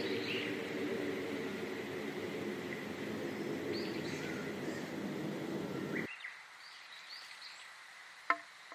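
Small birds chirping in short scattered calls over a steady low rushing noise. The rushing noise cuts off suddenly about six seconds in, leaving only the quieter chirps, and a single sharp click sounds near the end.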